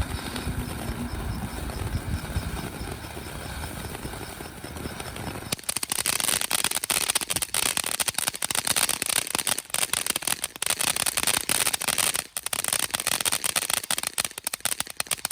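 Phantom Fireworks Tijuana Tremor ground fountain spraying with a steady rushing hiss. About five and a half seconds in it switches to a loud, dense crackle of many rapid pops that keeps going.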